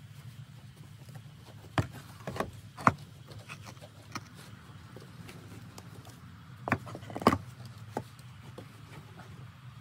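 Stone blocks knocking and clacking against one another as they are set by hand into place as steps: a few sharp knocks about two to three seconds in, and again about seven to eight seconds in, over a steady low hum.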